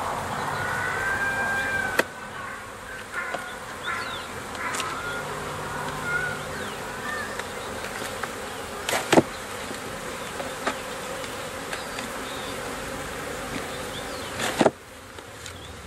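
Honeybees buzzing around an open hive, a steady hum with individual bees droning close by. Three sharp knocks cut through it, about two seconds in, around nine seconds in, and near the end.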